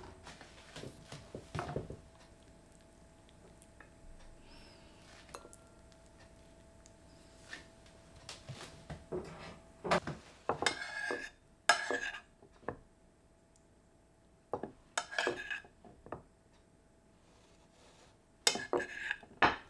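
Cutlery clinking and scraping on ceramic plates as food is served and curry sauce is spooned out: scattered light clicks and several short scrapes.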